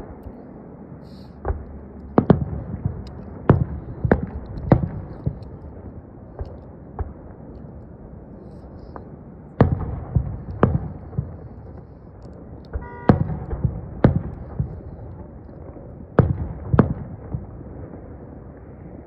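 Aerial firework shells bursting in a series of sharp bangs at irregular intervals, sometimes two or three in quick succession, over a steady low background noise.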